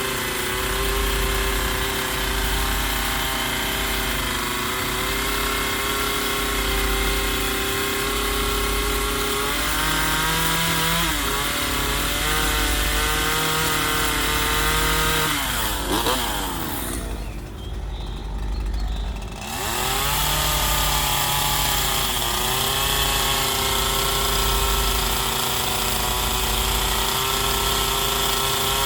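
Chainsaw running steadily as it carves into a wooden log. Past the middle the throttle eases off and the pitch falls for a few seconds, then it revs back up and carries on cutting.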